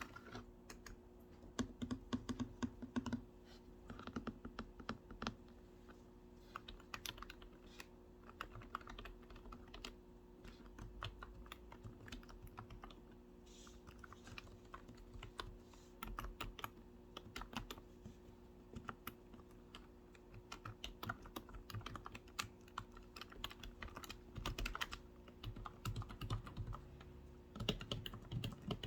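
Typing on a computer keyboard: irregular bursts of quick key clicks with short pauses between them.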